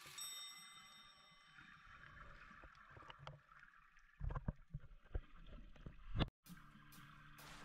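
A boat ride: water and motor noise with heavy, irregular low rumbles on the microphone between about four and six seconds, a brief dropout, then a steady low hum.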